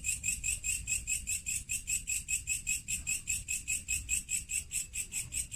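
Insects chirping steadily in a fast, even pulse of about eight chirps a second.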